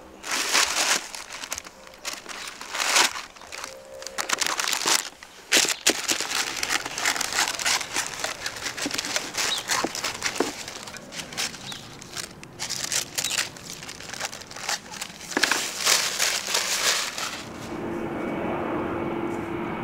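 Baking paper crinkling and rustling as it is handled and cut to fit around a baking tray, in dense irregular crackles. Near the end it gives way to a steady hum.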